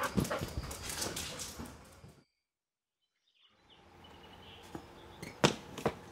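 A dog stirring, with quick clicks and taps that fade out and cut to silence about two seconds in. Then faint background with a few sharp knocks.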